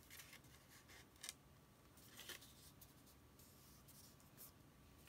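Faint rustling and rubbing of paper as fingers press a glued paper pop-up piece flat onto card stock, with a few soft scrapes, the clearest about a second in and just past two seconds.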